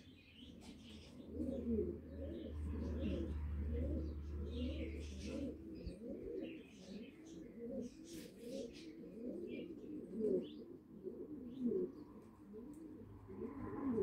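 Birds calling: a steady run of soft, low, warbling calls repeating a couple of times a second, with short high chirps over them. A low hum sounds during the first few seconds.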